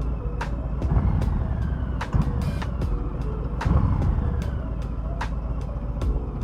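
Harley-Davidson Low Rider S's V-twin on its stock exhaust running and revving, its rumble swelling twice, under background music with a steady beat.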